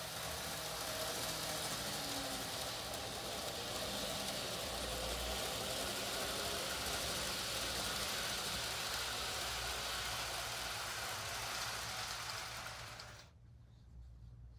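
TOMIX N-gauge model train running on its track under automatic control: a steady rushing of wheels and motor that swells as it runs, then drops away abruptly near the end.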